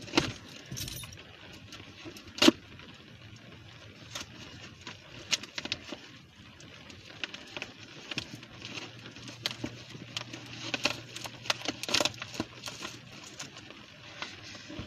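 A package being handled and worked open by hand: irregular rustling, crinkling and tapping, with one sharp click about two and a half seconds in. A faint low hum comes in about eight seconds in.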